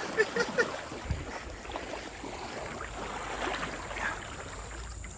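Running water of a small creek, a steady rushing noise, with a few short crackles in the first second and a low thud just after a second in.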